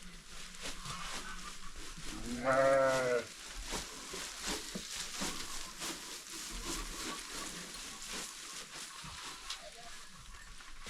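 A goat bleats once, a quavering call lasting about a second, about two seconds in, over a steady hiss with faint ticks.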